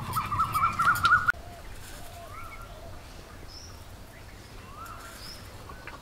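A dog whining in a wavering, slowly rising pitch for about a second, cut off suddenly. Then a few faint bird chirps and short high whistles.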